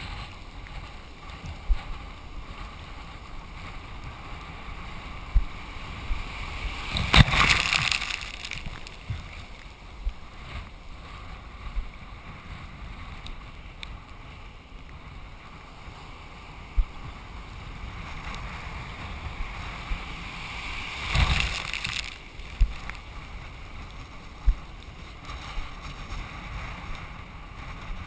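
Choppy water sloshing and splashing against a windsurf board close to the microphone, with wind on the microphone. Two louder surges of splashing, about seven seconds in and about twenty-one seconds in, and scattered short knocks of water slapping the board.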